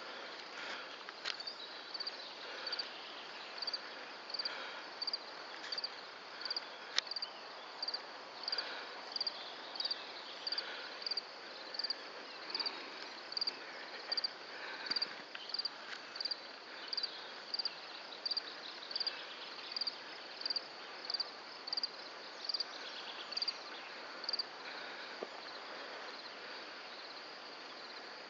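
A small animal's high chirp repeating evenly, about three every two seconds, and stopping a few seconds before the end, over faint open-air hiss. A single sharp click sounds about seven seconds in.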